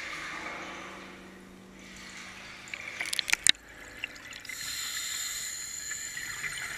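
Underwater sound of a scuba diver breathing out through the regulator, bubbles rushing and hissing up past the camera, with a few sharp clicks about three seconds in.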